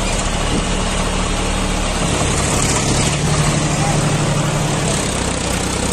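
An engine idling steadily, a tractor-style engine sound with a low, even hum under a steady hiss.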